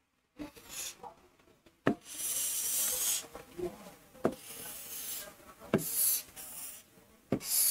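A pen drawing lines on a smart-board screen: a few sharp taps as it touches down, each followed by a scratchy rubbing as it is drawn along. The longest stroke comes about two seconds in.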